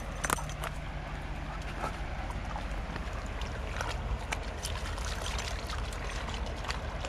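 A Brittany wading in a shallow river, its paws splashing and sloshing in the water at irregular intervals, over a steady low rumble.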